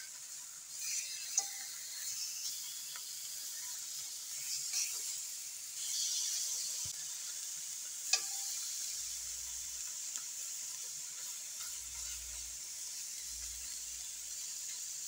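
Smoked ham steaks sizzling in butter in a cast iron frying pan as they are turned with a fork. The fork clicks sharply against the pan about a second and a half in and again about eight seconds in.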